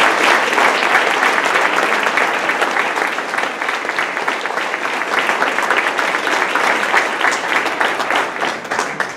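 Audience applauding: many hands clapping together, loud and sustained, easing off near the end.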